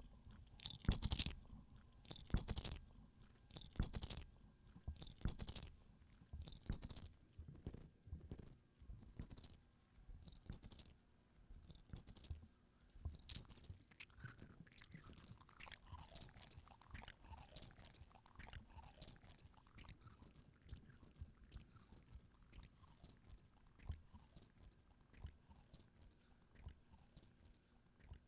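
Repeated short crunching clicks close to the microphone. They come heavy and in pairs about every second and a half for the first eight seconds or so, then fainter and quicker.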